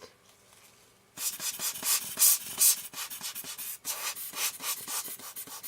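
Hand rubbing and wiping close to the microphone: a quick run of irregular scrubbing strokes starting about a second in, with a brief pause partway through.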